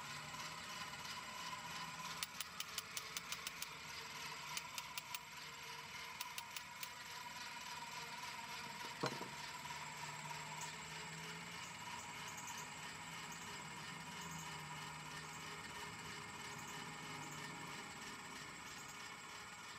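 Paillard clockwork fan's spring motor running with a steady faint whir and hum as the blade spins. Between about two and seven seconds in there are three quick runs of clicks from the winding ratchet, about seven a second, while the crank is handled and removed, and there is a single knock about nine seconds in.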